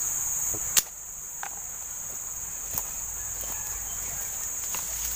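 Steady high-pitched drone of insects, with a sharp click about a second in and scattered light snaps and rustles as a person moves through undergrowth gathering dry sticks.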